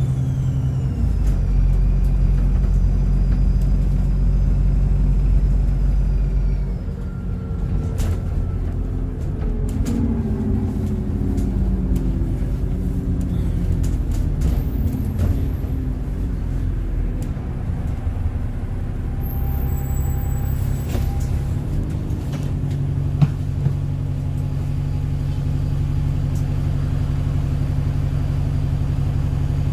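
Inside an Alexander Dennis Enviro400 double-decker bus: the diesel engine rumbles under load with a high turbo whistle that falls steadily in pitch over the first few seconds as the power comes off. The bus then runs more quietly, with a few brief high tones, and a steady engine hum builds near the end.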